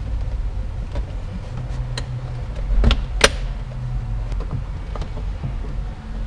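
Sharp plastic clicks and knocks of car interior trim being pressed and snapped back into place, several spread out, the loudest about three seconds in, over a steady low hum.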